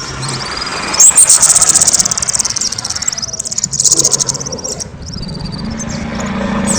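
Kemade songbird singing loudly: a few high whistled notes, then from about a second in a very rapid, high-pitched trill delivered in stretches, with more high notes near the end.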